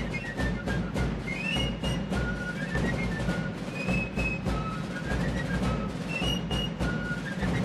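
Fife-and-drum music: fifes play a quick high melody over a steady run of drum strokes.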